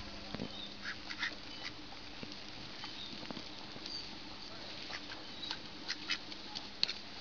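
A flock of domestic ducks quacking, short scattered calls from several birds overlapping at irregular intervals.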